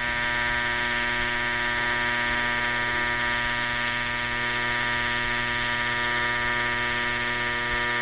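AC TIG welding arc on aluminium buzzing steadily, held continuously through a single weld run without breaking.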